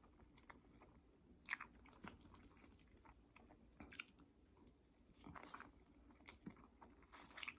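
Faint chewing and mouth sounds of a person eating soft, cheesy corn-tortilla enchiladas, with a few scattered wet smacks and clicks.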